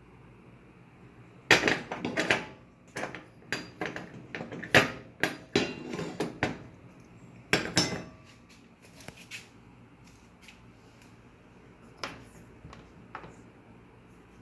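Irregular metal clattering and knocking, dense for several seconds and then sparser, from metal oven or stove parts being handled.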